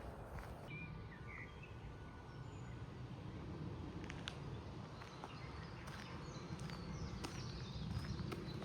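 Outdoor ambience with small birds chirping, the chirps busier in the second half, over a steady low rumble, with a few sharp clicks.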